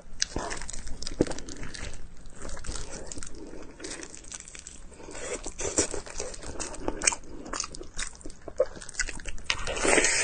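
Close-miked eating: a person biting and chewing pork, with irregular sharp, crackly clicks and wet mouth sounds.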